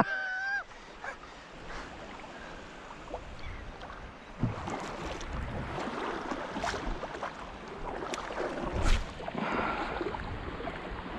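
Shallow salt water splashing and sloshing, with scattered knocks and splashes that pick up about four seconds in. A brief high-pitched call sounds at the very start.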